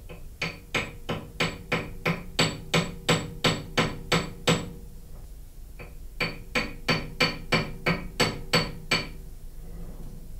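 Quick, light hammer taps on a gear workpiece held in a lathe chuck, about three taps a second in two runs with a short pause between. Each tap rings metallically. The part is being knocked over to true it, its high side showing on a dial indicator.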